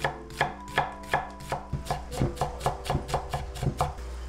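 Chef's knife chopping garlic cloves on a wooden cutting board: a quick run of sharp knife strikes, about four a second, stopping near the end.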